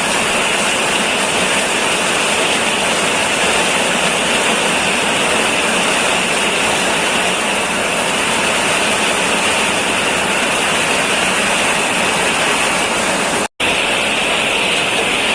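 Coffee roasting machine running: a loud, steady rushing noise with a hissing high edge. It breaks off for an instant near the end and carries on.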